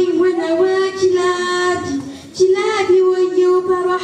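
A high-pitched solo voice singing an unaccompanied devotional chant in long, held, wavering notes: two phrases with a short breath between them about two seconds in.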